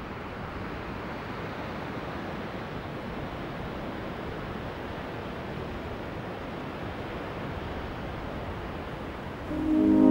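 A steady, even rushing noise. Near the end, brass music with a French horn comes in, much louder.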